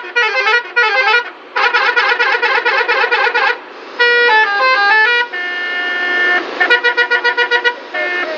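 Telolet multi-tone musical horn playing a string of melodic patterns: three quick up-and-down phrases, a fast warbling run, a falling-then-rising phrase, a held chord, then rapid pulsing toots near the end.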